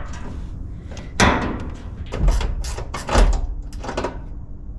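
A series of knocks and thumps as a mounting bolt is worked down through a fuel tank's mount into the truck bed, the loudest about a second in.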